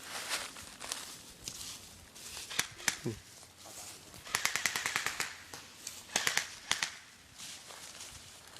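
Airsoft guns firing: two single shots, then a rapid full-auto burst lasting about a second, then a couple of short bursts.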